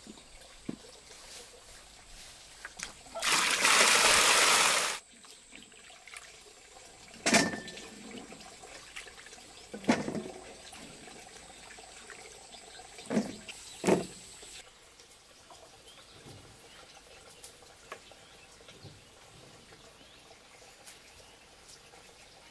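Water pours or gushes out for about two seconds, a few seconds in, followed by four separate knocks.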